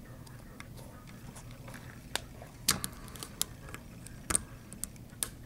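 Scattered small metallic clicks and scrapes of a lock pick and tension wrench working the wafers of an old Eagle wafer padlock, with a few sharper clicks about halfway through.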